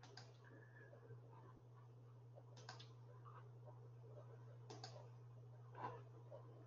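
Near silence with a steady low hum and a few faint, short computer mouse clicks spread across the pause.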